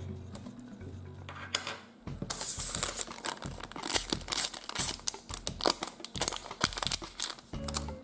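A small foil-plastic packet being torn open and crinkled by hand, a dense run of crackles from about two seconds in until shortly before the end, over soft background music.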